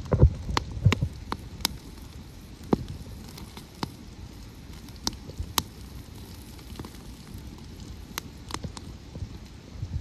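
Wood campfire crackling, with sharp, irregular pops scattered throughout. A low rumble rises and fades within the first second.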